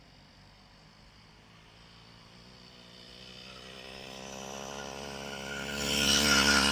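Riga moped's small two-stroke engine running, coming closer and growing steadily louder from faint to loudest near the end.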